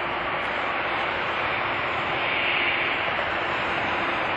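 Boeing 787-8 Dreamliner's jet engines running at low power as the airliner taxis onto the runway: a steady rush with faint steady tones, growing slightly louder.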